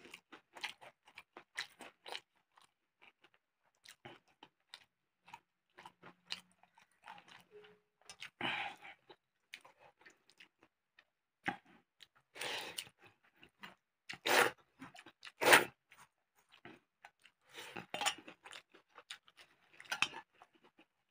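Close-miked chewing and crunching of food, in irregular bursts of short crackly bites, with a few louder sharp crunches in the middle.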